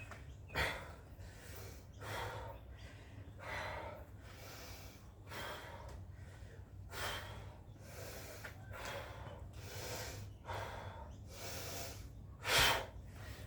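A person breathing hard from exertion during a set of burpees: a run of heavy breaths about every one and a half to two seconds, with one louder gasp near the end.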